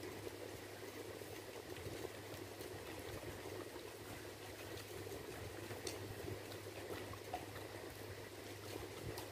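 Fingers mixing rice into thin curry gravy on a stainless steel plate: soft wet squishing, with light ticks of fingers and rice against the metal, over a steady low hum.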